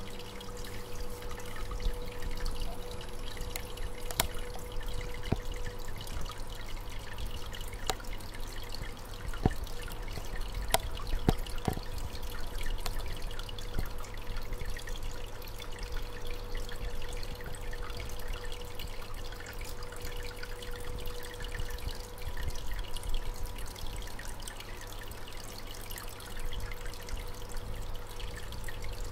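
Aquarium water trickling and dripping steadily over a steady hum, with a few faint ticks.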